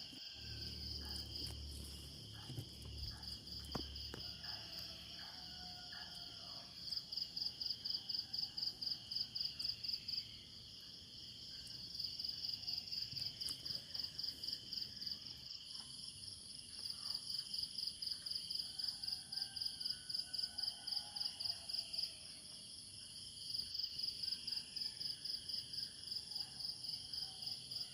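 Night insects, crickets, chirping in rapid even pulses, about four a second, in trains of a few seconds with short breaks. About halfway in, a steady higher-pitched buzz joins. There is a low rumble in the first few seconds.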